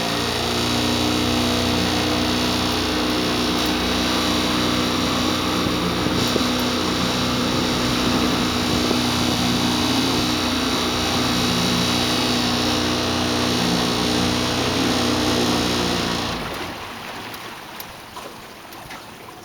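Small outboard kicker motor on a boat running under throttle, a steady engine note; about sixteen seconds in the note falls away sharply as the throttle is pulled back, leaving a much quieter idle.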